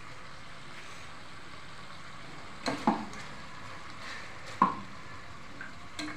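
Chicken feet adobo cooking in an aluminium pot with a steady sizzling hiss. A metal ladle stirs it, knocking against the pot in a quick double clank about three seconds in and a louder single clank about four and a half seconds in.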